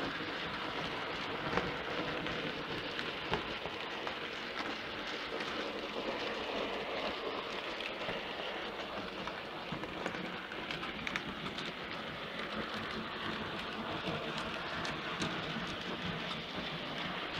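Bachmann OO-gauge GWR 'Dukedog' 4-4-0 model locomotive and its train running steadily on model track: an even whirring, rattling rush of motor and wheels on rail, with occasional small clicks.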